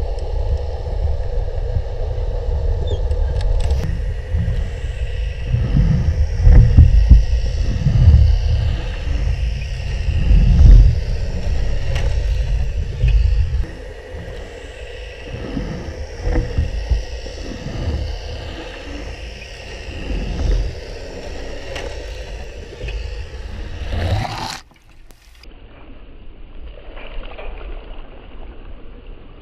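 Underwater sound in a canal: a low rumble with surging, churning water over a faint steady hum, loudest in the first half. About 24 seconds in it cuts abruptly to a much quieter lapping of water at the surface.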